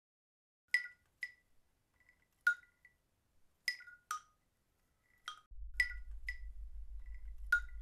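Light glassy chimes: about a dozen single struck notes at a few high pitches, each ringing briefly, falling at irregular intervals. A low steady hum joins about halfway through.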